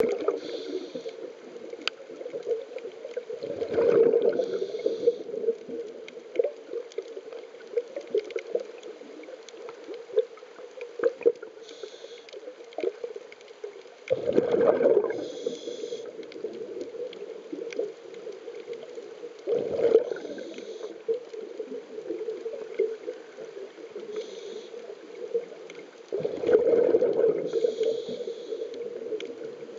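Scuba diver breathing through a regulator underwater. Four bursts of exhaled bubbles gurgle out at uneven intervals, with short hisses of air between them, over a steady low hum.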